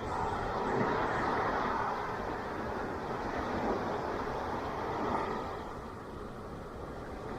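Ocean waves breaking and washing up the shore: a steady rushing noise that swells about a second in and again around five seconds, then eases off.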